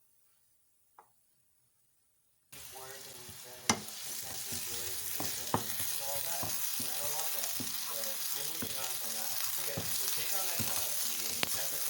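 Near silence for about two seconds, then food frying in oil in a pan starts suddenly and sizzles steadily while it is stirred for a stir fry, with one sharp knock soon after and repeated taps and scrapes of the utensil against the pan.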